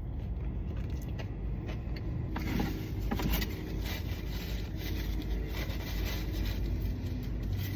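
Steady low rumble of a car cabin, with a few soft rustles and clicks a few seconds in.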